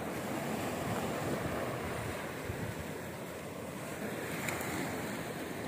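Small waves breaking and washing up a sandy beach, a steady surf, with wind buffeting the microphone.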